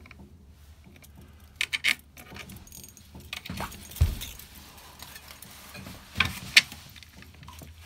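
A few sharp clicks and a light jangling rattle from gear being handled, with a dull knock about four seconds in and two more clicks near the end.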